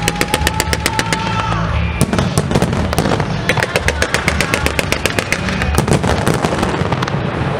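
Aerial fireworks display: quick runs of sharp reports, about ten a second, the first in the opening two seconds and another from about three and a half to six seconds in, with a long whistle through the first second and a half. Music with a beat plays underneath.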